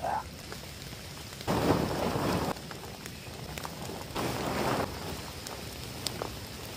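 Steady rain falling on leaves and tent, with two louder bursts of rustling from the tent's fabric and the waterproof poncho as the tent is taken down, about a second and a half in and again past four seconds.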